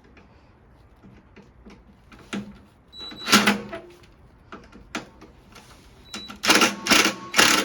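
Clicks and knocks of tools on a washing machine's parts, with a louder clatter about three seconds in. Near the end, a small power tool's motor runs in short bursts, about two a second.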